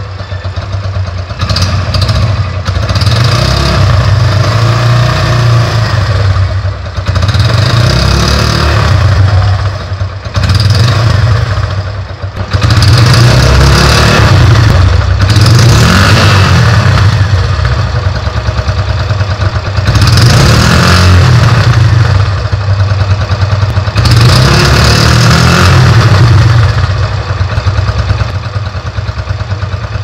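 2017 Hero Glamour FI's 125 cc single-cylinder four-stroke engine heard at the exhaust outlet, revved again and again with short throttle blips that rise in pitch and fall back toward idle between them. The revving eases off near the end.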